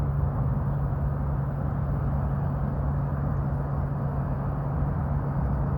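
Steady low machine hum over a constant rushing noise, typical of running air-conditioning equipment.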